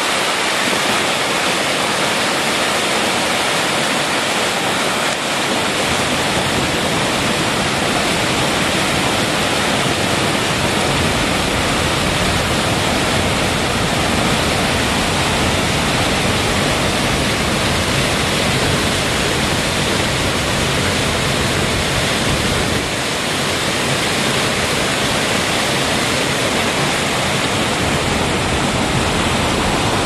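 Small waterfall below a mill pond, running high and fast after heavy rain, with whitewater rushing and splashing over rocks in a loud, steady rush. A deeper rumble fills in a few seconds in.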